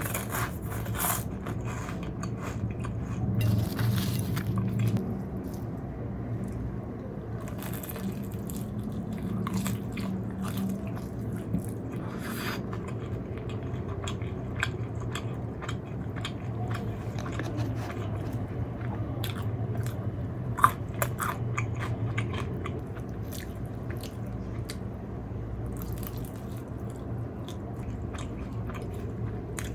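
Close-miked biting, crunching and chewing of fried food, with many short crackling clicks, one sharper click about two-thirds of the way through. A steady low hum runs underneath.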